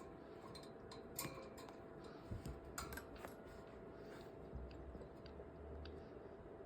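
Faint handling sounds as a sugar glider pouch is moved: scattered small clicks and scratchy rustles, busiest around a second in and again near the middle, with a low rumble of handling a little later.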